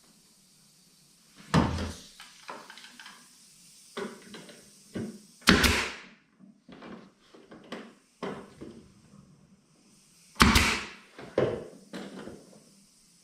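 Pneumatic brad nailer firing into cabinet wood, three sharp shots about four to five seconds apart, with lighter knocks of wood and tool being handled between them.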